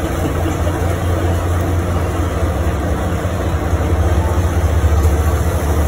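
Steady low hum of a food truck's running kitchen machinery, with an even noisy wash over it.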